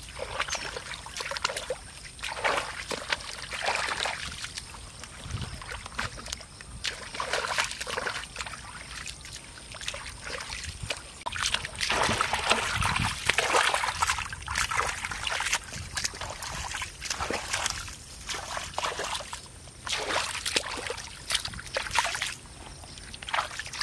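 Muddy water sloshing and splashing in irregular bursts as hands and bare feet dig and sweep through a shallow flooded puddle.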